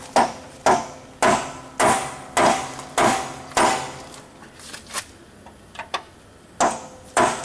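Hammer blows on steel, about two a second, each ringing briefly, struck to drive out a seized bolt on a car frame. After a run of about seven blows there is a lull with a few light taps, then two more hard blows near the end.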